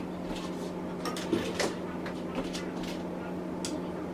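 Sharp knocks and a short scrape of kitchenware on a wooden counter about a second and a half in, with a lighter click near the end, over a steady low hum.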